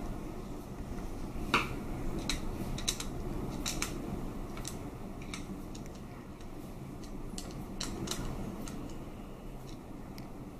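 Phillips screwdriver driving the screws back into an alarm padlock's body: scattered small clicks and ticks of the driver and the handled lock over a low steady background.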